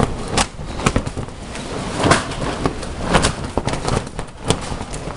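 Storm wind buffeting the event structures: irregular sharp snaps and bangs, about a dozen, over a steady rush of wind.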